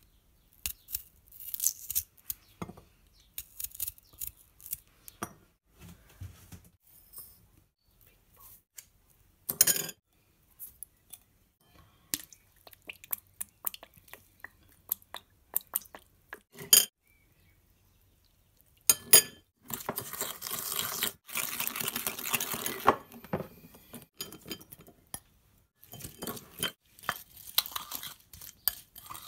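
A knife cutting raw green plums and a metal spoon clinking and scraping against a ceramic bowl, in scattered short knocks and clicks. About two-thirds of the way through there are a few seconds of continuous scraping and rustling as the sliced plums are tossed with chili flakes and seasoning.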